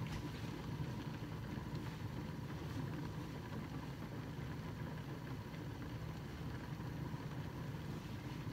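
A steady low mechanical hum with a faint high tone running under it, unchanging throughout.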